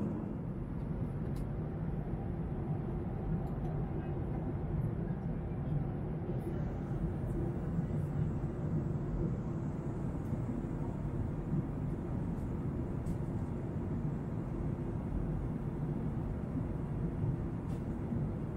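Steady low rumble of an airliner cabin in flight: engine and airflow noise with a faint steady hum, unchanging throughout.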